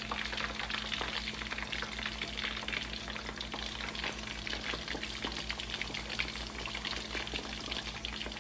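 Marinated chicken pieces deep-frying in hot oil in a wok: a steady, dense crackle and sizzle of bubbling oil.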